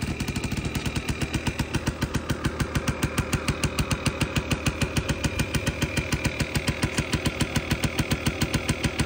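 Yamaha QT50 moped's small single-cylinder two-stroke engine idling just after a cold start, a fast, even string of exhaust beats.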